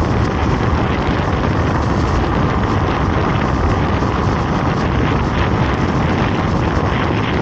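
Loud, steady wind buffeting a moving camera's microphone, a rough low rumbling noise with no clear engine note in it.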